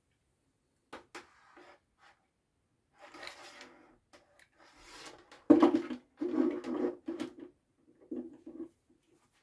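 Hands working a plastic relay socket, wire ends and a small screwdriver: scattered clicks, then a louder run of scraping strokes about halfway through as terminal screws are turned, and a shorter run near the end.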